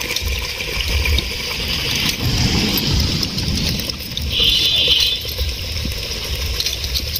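Water sloshing as hands squeeze soaked tamarind in a bowl of water to draw out the pulp for the curry's sour base, over a low steady rumble.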